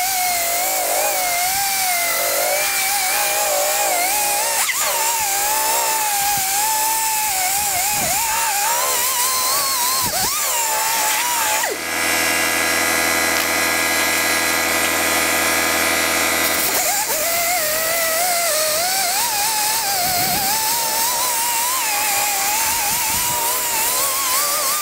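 Electric rotary polisher with a foam pad running as it buffs compound into a sanded plastic headlight lens. Its motor whine wavers in pitch as the pad is pressed and moved. About halfway through, the whine breaks off for about five seconds and a steady buzz takes its place, then the whine returns.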